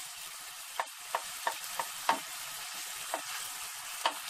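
Chopped onions, green peppers and tomato paste sizzling in oil in a stainless steel pot, with a steady hiss, while a wooden spatula stirs them, scraping and knocking against the pot about a dozen times.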